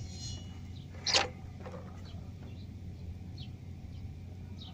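Steady low hum with faint, short high chirps of small birds now and then, and one short sharp sound about a second in.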